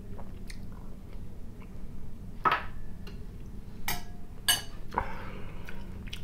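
A few separate clicks and ringing metallic clinks of a fork against an opened tin of sprats. Near the end comes a soft rustle of bread being broken by hand.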